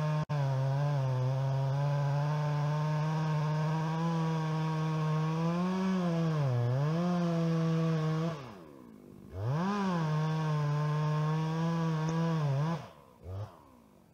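Chainsaw running at high revs cutting into a beech trunk, its pitch sagging under load around the middle. The throttle is let off to idle for about a second, opened up again, and released near the end with one short blip.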